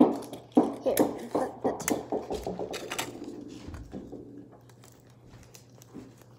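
A small ball bouncing on a hard surface: a loud first knock, then bounces coming faster and fainter until it settles about four seconds in.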